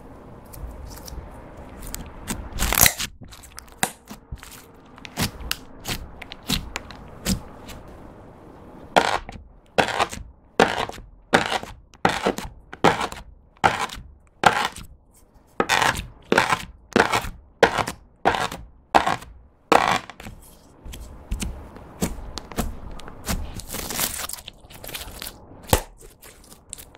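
Purple slime being stretched and pressed by hand, with small sticky pops and crackles. Then a knife blade cuts into the slime slab and onto the wooden board beneath, about two sharp chops a second for around ten seconds, followed by kneading with more irregular sticky clicks.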